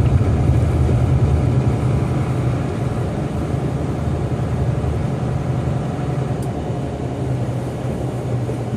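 Steady low rumble of airliner jet engines running at low power, easing slightly over the first few seconds and then holding level, with a faint steady whine above it.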